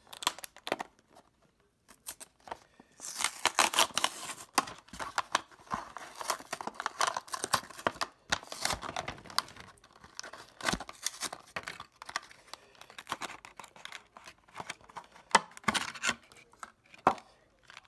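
Clear plastic blister pack of a diecast toy car being crinkled and torn open by hand: irregular crackling and ripping with sharp clicks, loudest about three seconds in.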